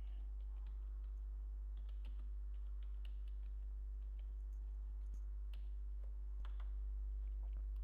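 Computer keyboard being typed on in scattered, irregular keystrokes, over a steady low electrical hum.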